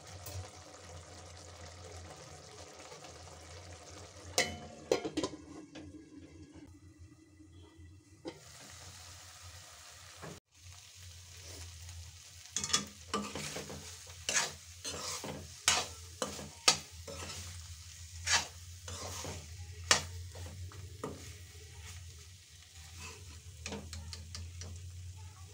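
Drumstick masala frying in an aluminium kadai, stirred with a metal ladle that scrapes and clinks against the pan many times, most often in the second half. A steady low hum runs beneath.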